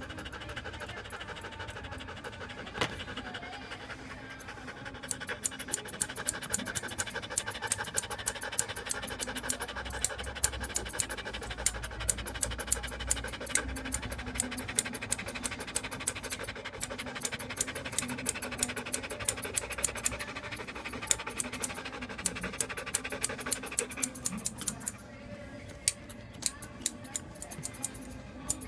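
Grooming scissors snipping through a standard poodle's curly coat in a steady run of quick cuts, about two to three a second, starting about five seconds in and pausing briefly near the end. The dog pants underneath.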